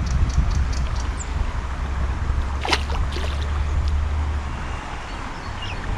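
Steady low wind rumble on the microphone over light splashing of river water at the bank, as a released chub swims off and a hand dips and splashes in the shallows. There is a single sharp click about two and a half seconds in, and a bird chirps briefly about a second in.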